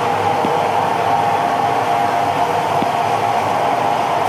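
CNC plasma table running: a steady, loud hiss with a hum in it, and a few faint ticks.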